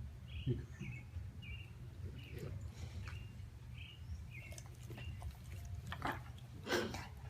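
Rottweiler snoring in deep sleep, a steady low rumble with louder rasping breaths, the loudest two near the end. Small birds chirp repeatedly in the background.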